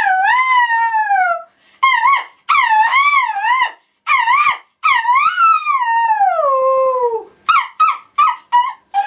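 A boy's voice imitating a jackal howling: a run of wavering, warbling howls, one long howl that slides down in pitch, then a quick series of short yelps near the end.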